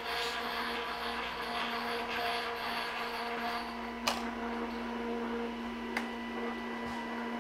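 Festool Conturo KA 65 edge bander running as it feeds and presses edge banding onto a panel edge: a steady motor hum with hiss, broken by two sharp clicks about four and six seconds in.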